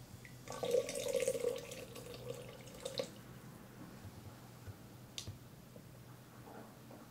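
Water poured from a bamboo tea ladle into a cast-iron tea kettle: a splashing pour of about two and a half seconds with a steady note under it, ending sharply, then a single drop falling about two seconds later.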